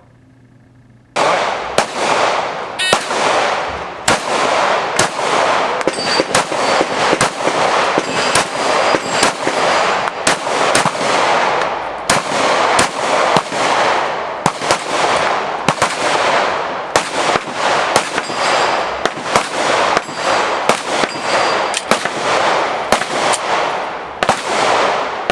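Pistol shots on a shooting range, starting about a second in and going on irregularly at one or two a second, over a steady hiss.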